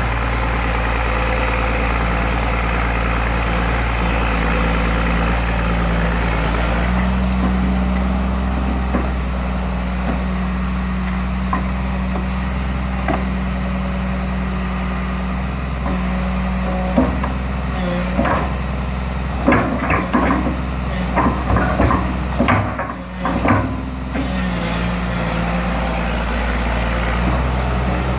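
Komatsu PC200LC-3 excavator's diesel engine running steadily at low revs, its note stepping up and down as the hydraulics take load while digging. Past the middle comes a run of sharp knocks and clatters from the digging.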